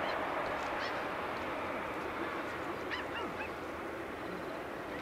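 Distant roar of an Airbus A380's four Rolls-Royce Trent 900 jet engines as it climbs away after takeoff, slowly fading. A few short high chirps come through about half a second and three seconds in.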